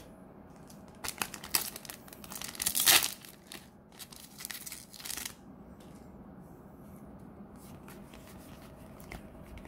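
A plastic trading-card booster pack being torn open, with crinkling of the wrapper in bursts over a few seconds, loudest about three seconds in. After that come faint ticks of the cards being handled and fanned.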